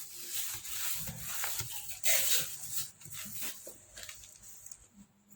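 Rustling and rubbing from handling the packaging, with scattered light clicks. It is loudest about two seconds in and fades near the end.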